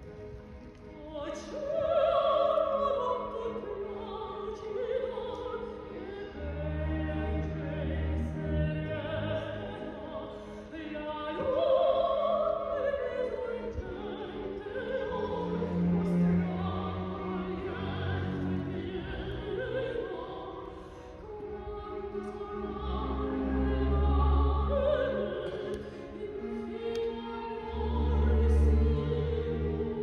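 Operatic soprano singing with a symphony orchestra: a solo voice with wide vibrato over orchestral strings and held low notes.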